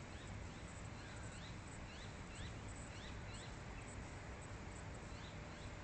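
Birds chirping: a run of short, rising chirps, about two a second, over a steady low rumble.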